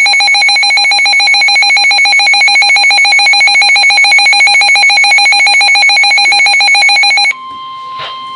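A loud electronic alert tone, a buzzy pitch trilling rapidly like a telephone bell, runs steadily for about seven seconds and cuts off abruptly. It is followed by a quieter steady single-pitch tone, the 1050 Hz warning alarm tone that NOAA Weather Radio sends ahead of a warning.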